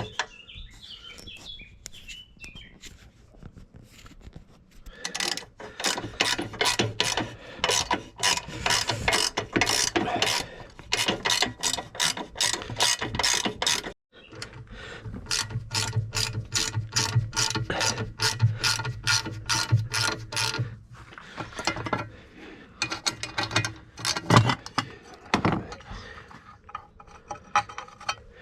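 A ratchet clicking rapidly in long runs, with a brief cut about halfway and a steady low hum underneath for several seconds after it.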